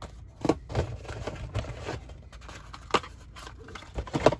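Small cardboard toy-car boxes being handled and pulled from a cardboard display case: rustling and scraping of cardboard with a few sharp taps, the loudest about three seconds in and just before the end.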